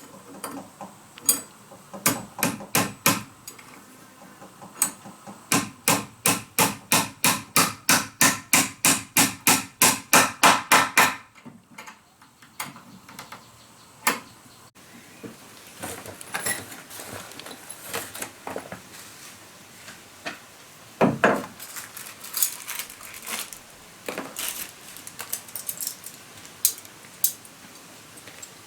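Hammer striking wood. After a few scattered blows comes a fast, even run of about four strikes a second, from about five to eleven seconds in. Lighter scattered knocks and clicks follow.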